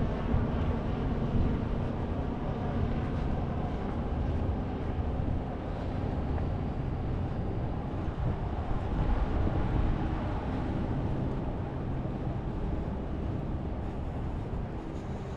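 Steady low rumble with a faint engine hum from boats on the harbour, the hum slowly fading, and wind buffeting the microphone.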